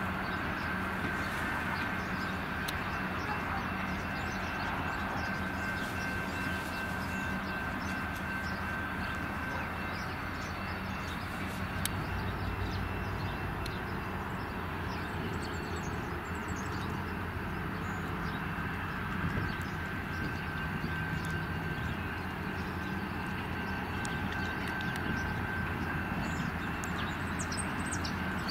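A diesel locomotive's engine running steadily as it slowly pushes a rake of passenger carriages through yard points and curves, with a steady high-pitched whine over the low engine hum and scattered light clicks of wheels on the rails.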